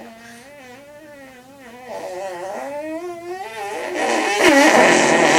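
A long, buzzy fart noise that wavers in pitch and grows louder, breaking into a loud spluttering blast about four seconds in.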